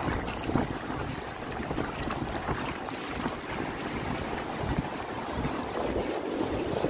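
Wind buffeting the microphone in uneven gusts, over the wash of shallow surf.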